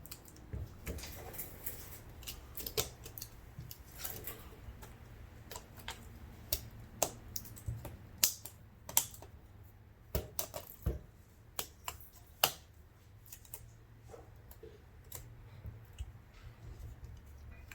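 Irregular sharp plastic clicks and snaps as the Samsung Galaxy A50's plastic frame is pressed and clipped around the screen assembly, a few of them louder. The frame is not clipping in at the front.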